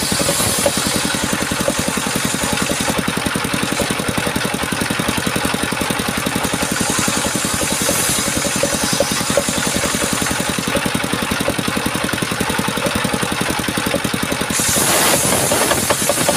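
Chainsaw's small two-stroke engine running steadily with an even, rapid firing pulse, getting louder near the end.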